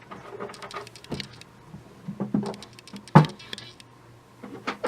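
Handling noise: scattered light taps, clicks and rustles, with one sharp knock a little after three seconds in, over a faint steady low hum.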